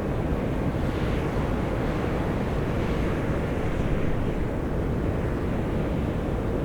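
Volcanic fumaroles venting steam and gas: a steady, low rushing hiss that keeps an even level throughout.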